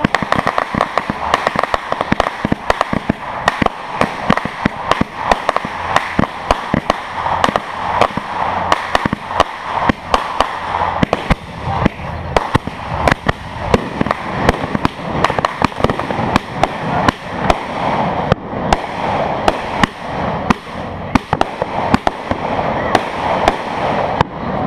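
Fireworks going off in rapid succession: a continuous string of sharp bangs and crackles, several a second, over a steady hiss.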